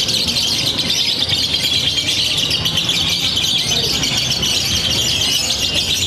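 Lovebirds singing a long, unbroken run of rapid, high-pitched chirping chatter, the continuous song that lovebirds are judged on at singing contests.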